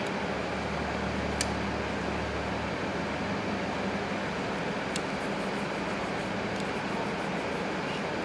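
Steady machine hum and hiss of something running continuously, with two faint clicks about a second and a half and five seconds in as hands handle the wound voice coil.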